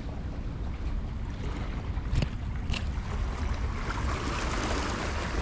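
Wind buffeting the microphone over the wash of sea water at the shoreline, with a steady low rumble. Two faint clicks come about two seconds in, and the water hiss grows louder in the second half.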